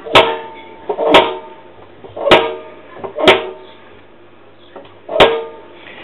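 Hotpoint washing machine's metal drum, moved by hand, knocking five times: sharp metallic clunks that ring briefly, about one a second with a longer gap before the last. The knock comes at one spot of the drum's travel, which the owner suspects comes from the triangular drum spider that holds the drum on its shaft.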